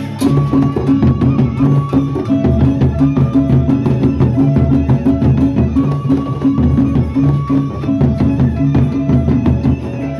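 Gendang beleq ensemble playing: large double-headed barrel drums beaten with sticks in a fast, steady interlocking rhythm, with clashing hand cymbals and held ringing metal tones over the top.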